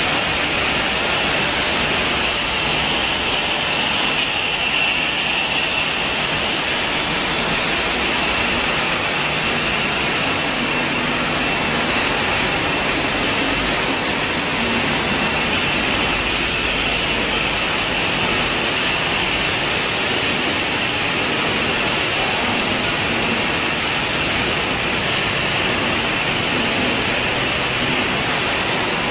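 Steady running noise of an ice pop filling and sealing line: an even mechanical din with a thin, steady high whine over it.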